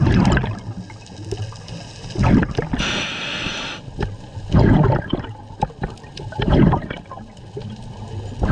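Scuba diver breathing through a regulator underwater: a hissing inhale about three seconds in, and gurgling bursts of exhaled bubbles about every two seconds.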